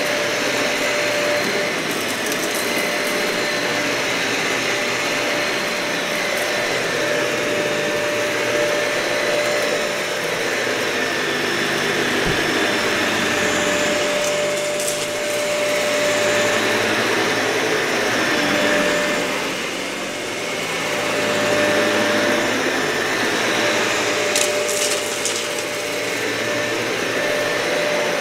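Dyson vacuum cleaner running over thick, matted carpet: a steady motor whine over airflow hiss that swells and eases gently as it is pushed back and forth. A few brief sharp ticks come about halfway and near the end.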